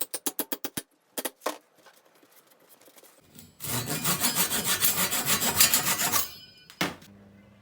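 Wood being worked by hand with fast back-and-forth rubbing strokes. There is a quick run of strokes, a short pause, then about three seconds of continuous rapid strokes, and a single knock near the end.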